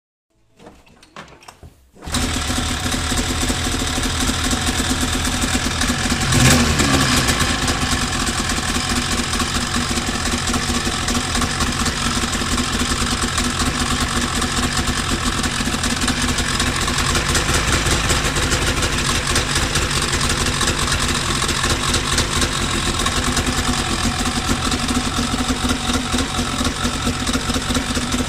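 2003 Polaris RMK 800 snowmobile's two-stroke twin engine catching about two seconds in on its first start after a rebuild. It then idles steadily, with one brief rise and fall in revs a few seconds later.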